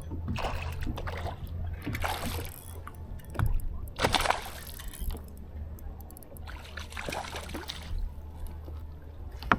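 Water splashing and sloshing in several short bursts as a hooked bass thrashes at the boat's side while being landed, over a steady low hum.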